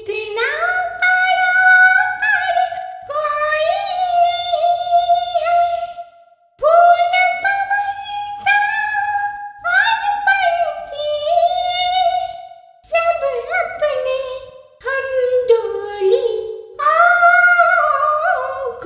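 A woman singing unaccompanied: a high melody in long held phrases that slide between notes, with short breaks for breath between them.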